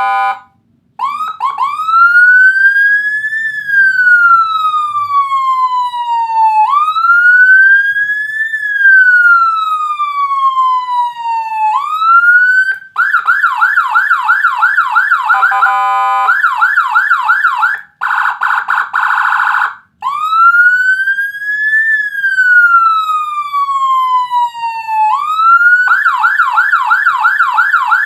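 Electronic police siren module sounding through a TOA horn speaker, playing Whelen HHS 3200-style tones. It plays a slow wail that rises and falls about every five seconds, switches about halfway to a fast yelp of roughly three sweeps a second with a brief steady, buzzy tone between, and near the end goes back to the wail and then the yelp.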